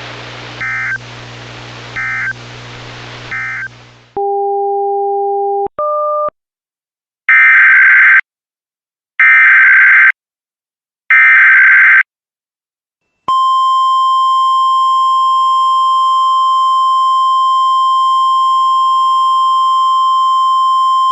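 Emergency Alert System tones over weather radio. First three short end-of-message data bursts over receiver hiss close the weekly test. Then, after a couple of brief beeps, come three loud, roughly one-second SAME header data bursts, and from about 13 seconds in the steady 1050 Hz NOAA Weather Radio warning alarm tone.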